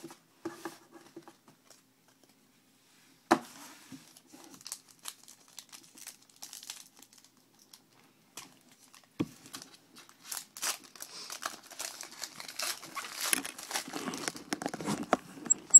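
Foil wrapper of a hockey trading-card pack crinkling and being torn open, a dense rustling that starts about two-thirds of the way through and grows. Before that, packs and cards are handled with scattered light clicks and one sharp tap about three seconds in.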